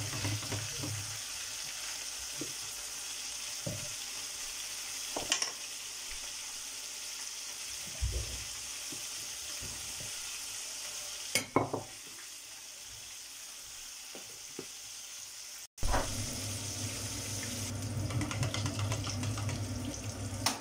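Pork pieces deep-frying in hot oil in a pot with a wire basket: a steady sizzling hiss, with a couple of sharp knocks about five and eleven seconds in.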